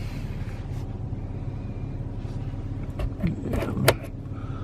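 2016 GMC Canyon's engine idling, a steady low hum heard from inside the cab. A few sharp clicks of the dash controls being worked come about three seconds in.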